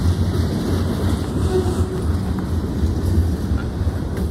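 A freight train's autorack and covered hopper cars rolling by, a steady low rumble of wheels on the rails.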